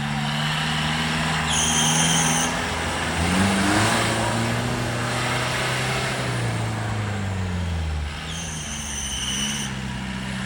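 Off-road 4x4 engine running under load, its revs rising and falling as it works through the course. A high, steady whistle-like tone sounds briefly twice, about a second and a half in and again near the end.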